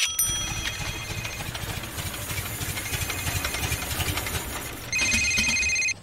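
Car driving, a low engine and road rumble as heard from inside the cabin. About five seconds in, a phone starts ringing with steady high electronic tones, which cut off at the end as the call is answered.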